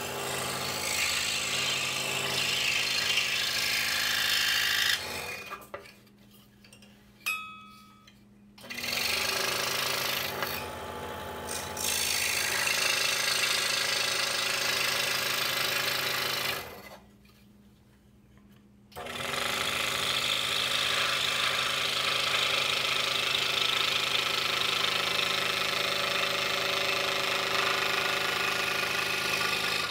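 DeWalt scroll saw running, its blade sawing through the wooden puzzle blank with a steady motor hum and a busy rasp. The sound stops about five seconds in and starts again some three seconds later. It stops again around seventeen seconds in and comes back after about two seconds.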